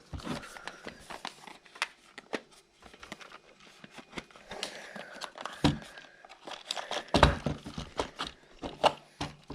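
Box packaging being handled and opened: crinkling and rustling with scattered clicks and taps, and two dull thumps, about six and seven seconds in.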